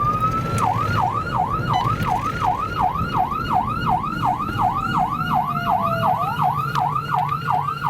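Police car siren switching from a slow wail to a fast yelp about half a second in, cycling about three times a second, over the low rumble of the patrol car.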